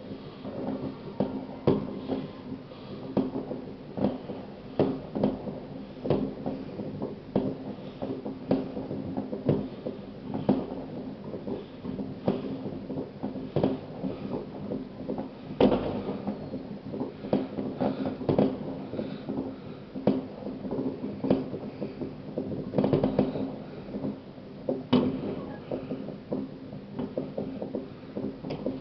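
New Year's fireworks and firecrackers going off in the distance: irregular bangs and pops, several a second at times, with a steady low hum underneath.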